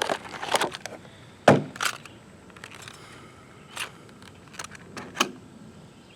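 Knocks and clicks of a hard solar battery charger and its parts being handled, with the loudest, sharpest knock about one and a half seconds in and smaller clicks scattered after it.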